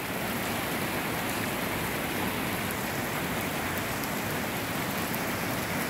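Steady rain falling, an even hiss with no breaks: light rain turning heavier again.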